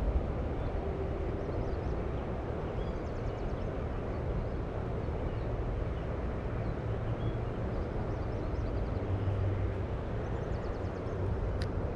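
Rain-swollen creek running hard: a steady, low rush of flowing water. Faint high chirps come about three seconds and ten seconds in, and a single sharp click near the end.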